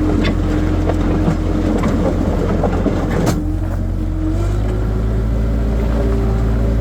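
Skid steer loader's engine running steadily, with irregular knocks and rattles over the first three seconds; about four seconds in the engine note steps up slightly and holds.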